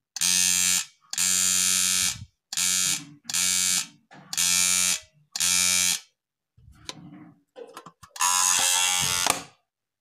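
A homemade pencil-box security alarm's buzzer sounding in seven short loud bursts, each switched on and off by hand at its trigger switch; the last burst, near the end, runs longer, about a second and a half. A few faint clicks come just before it.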